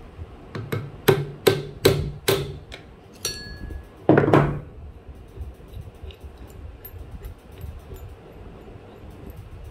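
Hammer tapping the end of a screwdriver held against the centre of an electric sewing machine's handwheel, a quick run of sharp metallic taps about every half second, knocking the fitting there loose so the handwheel can come off. A short metallic ring follows, then a single heavier thud about four seconds in, and after that only faint handling clicks.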